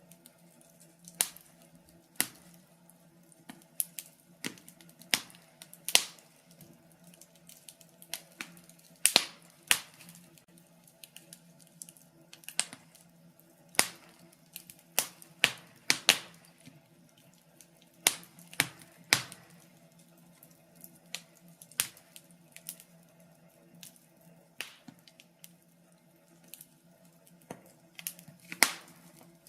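Wood fire crackling in a fireplace: irregular sharp pops and snaps, a few much louder than the rest, over a faint steady low hum.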